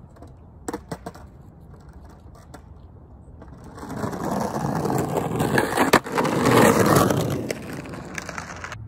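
Skateboard wheels rolling on a paved path, swelling as the rider comes close and passes, then fading. Two short clacks about a second in, and a single sharp clack about six seconds in.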